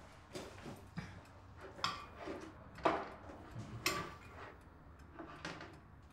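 Light clinks of plates and cutlery being set on a table, roughly one a second, a few ringing briefly.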